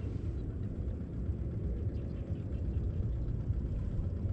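Wind buffeting a body-worn action camera's microphone: a steady low rumble.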